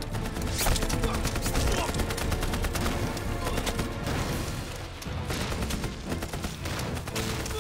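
Sustained, rapid machine-gun fire mixed with other gunshots: a continuous battle volley.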